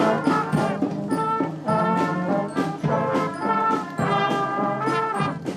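Background music with brass instruments playing a rhythmic melody.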